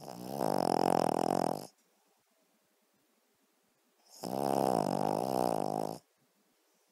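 Cavalier King Charles spaniel snoring: two long snores about four seconds apart, each just under two seconds long.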